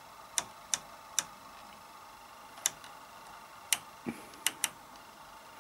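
Stitch-size dial on an SK 280 knitting machine carriage clicking through its detents as it is turned by hand: about eight sharp, separate clicks at uneven intervals.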